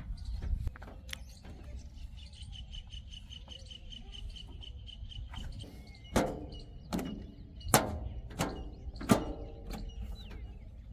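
Low, steady engine rumble with a fast, repeated bird chirp, then five sharp metallic clanks about 0.7 s apart, each ringing briefly.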